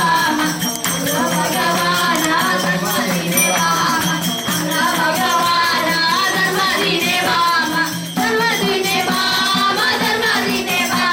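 Bhajan music: jingling hand percussion keeps the beat over a steady low drone, with a wavering melody line above.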